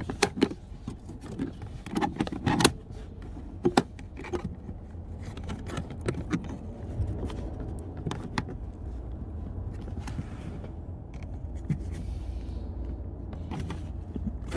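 Plastic interior door sill trim being worked loose with a trim pry tool: a run of sharp plastic clicks and scrapes as the retaining tabs are pried, thickest in the first few seconds and sparser later. A low steady rumble sits underneath from about halfway in.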